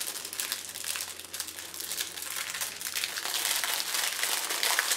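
Thin clear plastic packaging bag crinkling and rustling as hands handle it, a continuous crackle that grows louder in the second half.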